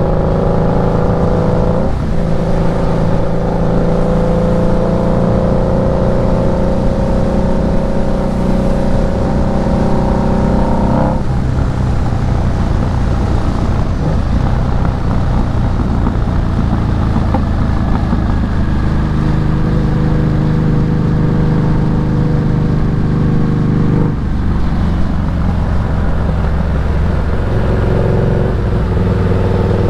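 2008 Harley-Davidson Night Rod Special's V-twin engine running under way, its pitch climbing slowly as the bike accelerates, with abrupt changes in its note about two, eleven and twenty-four seconds in.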